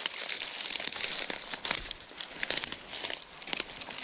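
Dry leaf litter and dead plant stems rustling and crackling in a steady, irregular run of small snaps as someone pushes through undergrowth.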